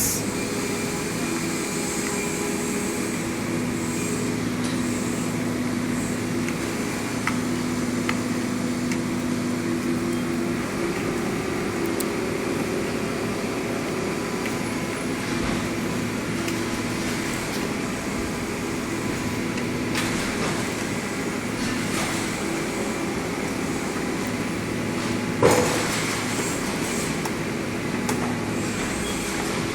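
Heavy construction machinery at an excavation site running steadily, with a few short knocks and one louder clank about 25 seconds in.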